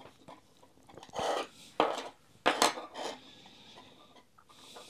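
T-handle hex keys with plastic handles and steel shafts being set down and shifted on a wooden tabletop: several short knocks and light metal clinks.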